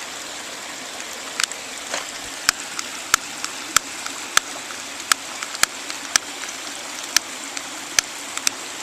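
A lighter struck over and over, sharp clicks about every half second to a second, failing to catch, over a steady rushing background.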